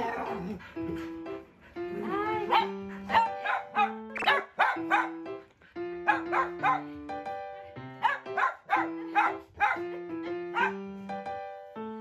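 Dogs giving a rapid string of excited greeting barks and yips, over background music with a simple melody.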